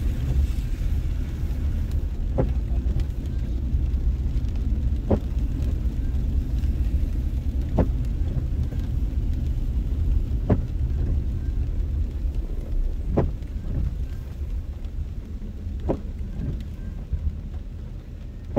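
Low steady rumble of a car's engine and tyres heard inside the cabin, easing a little near the end. Over it, the windshield wipers on an intermittent setting give a short knock about every two and a half seconds, seven times.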